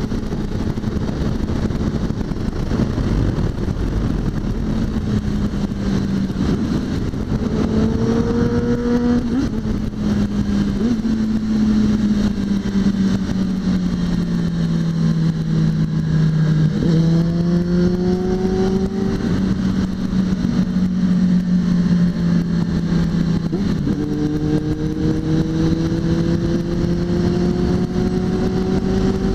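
Suzuki GSX650F's inline-four engine running on the road under a steady rush of wind noise. The engine note sags for a few seconds, then climbs in several long pulls under acceleration, dropping back at each gear change.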